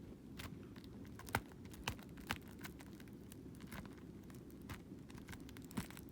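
Hands picking at the wrapping of a Blu-ray case, making scattered light clicks and crinkles over a low steady hum.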